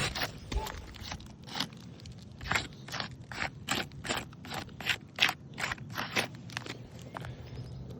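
Repeated gritty crunching and scraping strokes on weathered asphalt roof shingles, about two or three a second, as loose granules grind off the surface.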